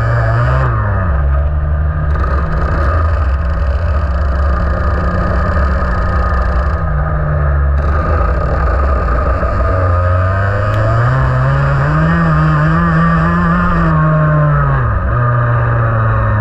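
IAME X30 125cc two-stroke kart engine running at racing speed, its revs dropping about a second in, holding steady, then climbing for a few seconds and falling again near the end as the kart brakes and accelerates around the circuit.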